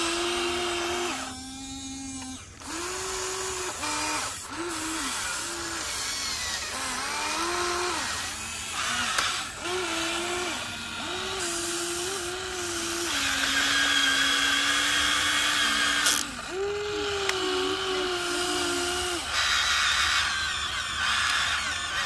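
Remote-control Huina 1593 excavator's electric motors whining in short spells, one after another, as the boom and bucket move; each whine starts, holds and cuts off, and the pitch shifts up and down between spells.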